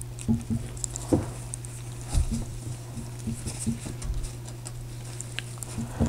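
Bristle brush dabbing and working glue onto sari silk on a paper collage: soft, irregular pats and rubs, one or two a second, over a steady low hum.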